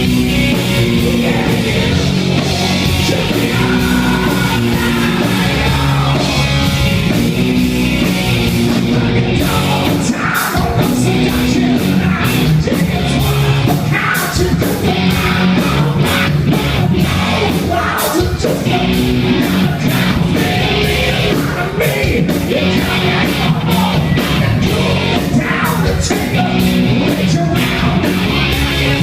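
Loud heavy rock band playing, with distorted electric guitar, drums and sung, shouted vocals. There is a brief break about nine seconds in, after which the drums hit hard on a steady beat.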